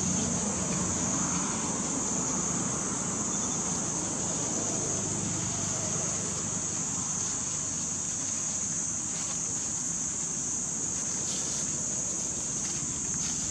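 Insects buzzing in a steady, unbroken high chorus over an even low background rumble.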